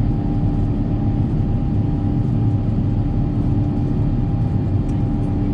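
Steady cabin noise of an Airbus A350-1000 in flight, heard from inside the passenger cabin: an even low rumble of its Rolls-Royce Trent XWB engines and airflow, with a steady hum over it.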